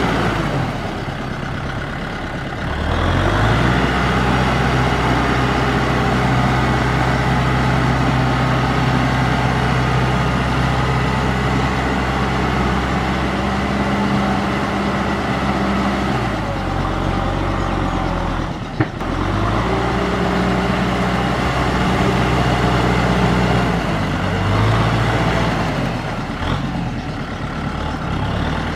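Kubota M6040SU tractor's four-cylinder diesel engine running under load as it works through flooded paddy mud, its note rising and falling several times. There is one sharp click about two-thirds of the way through.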